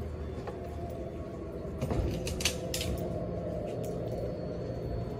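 City street ambience: a steady low hum of traffic, with a few sharp clicks about two to three seconds in.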